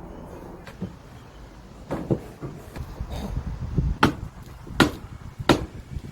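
Heavy strikes on timber, as when a mallet or hammer drives wooden frame joints together during hanok assembly: a pair of knocks, then a steady run of blows about 0.7 s apart that grow louder toward the end.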